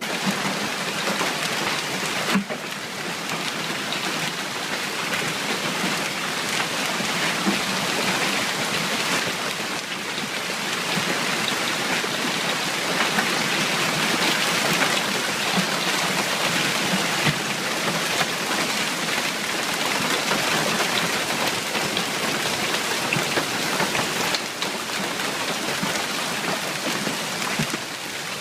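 Steady, dense rushing of water, like heavy rain pouring down, with a few faint ticks through it.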